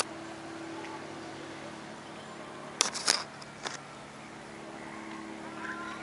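Light aircraft engine droning steadily high overhead. A sharp click at the start and a short cluster of clicks about three seconds in come from handling the camera.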